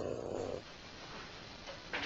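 A cat's drawn-out call, trailing off about half a second in, followed by faint background noise.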